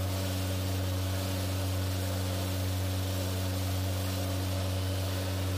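Steady low drone of running machinery aboard a tugboat: a deep, unchanging hum with fainter overtones above it and a hiss on top.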